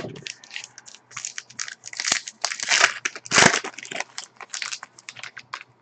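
Plastic trading-card pack wrapper being torn open and crinkled by hand, in quick irregular rustles and crackles, loudest around the middle.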